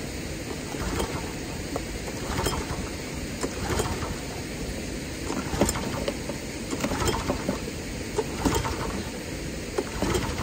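Recoil starter of a wing mower's small gasoline engine pulled again and again, about once a second, the engine cranking without catching. It is hard to start, which the owner suspects is flooding (carburettor overflow) after the mower was tilted on the truck.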